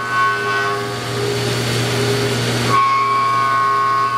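CNC vertical mill cutting an aluminium cleat under flood coolant: a steady machining whine made of several held tones over a constant low hum, the tones shifting about three seconds in.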